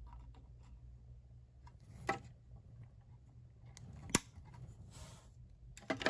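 Wire cutters snipping wire and component leads: two sharp snips about two seconds apart, the second the louder, with faint handling clicks between.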